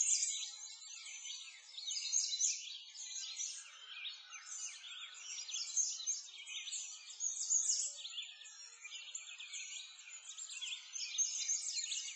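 Dense chorus of many small birds chirping and twittering at once, a continuous stream of quick high chirps with no low sound beneath.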